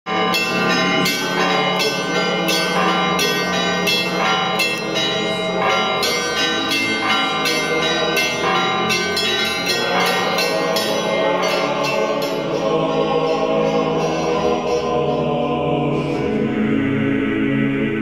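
Intro music led by bells, struck about twice a second and ringing on, which in the last several seconds gives way to a sustained chord.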